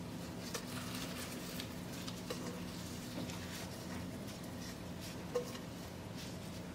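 Sticky, oiled bread dough being pulled and scraped out of a plastic container into a glass baking dish by a gloved hand: soft wet squelches and small scattered clicks, with one sharper click about five seconds in. A faint steady hum runs underneath.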